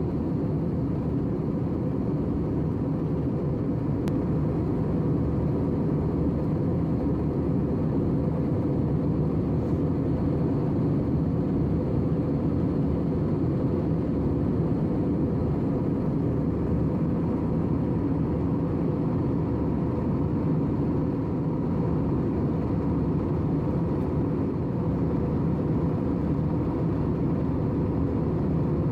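Steady cabin noise of a jet airliner at cruise: a constant deep rumble of engines and rushing air, with a faint steady hum underneath.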